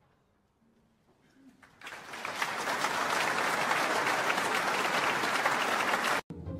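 Audience applauding, starting about two seconds in after a near-silent pause and cutting off suddenly near the end.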